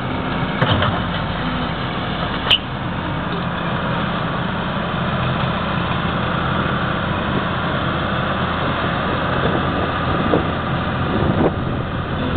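Wheel loader's diesel engine running steadily as the machine drives up and lifts its loaded bucket, with a few short clicks and knocks.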